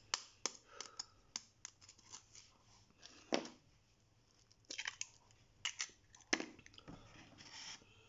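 Eggshells being tapped and cracked open with a knife: a quiet, irregular run of sharp little taps and crunches, with a few louder cracks in the middle and after about six seconds.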